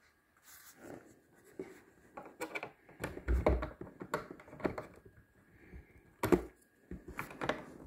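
Handling noise of a USB flash drive being fumbled at a JVC boombox's port: scattered plastic clicks, taps and scrapes, with one sharper knock about six seconds in.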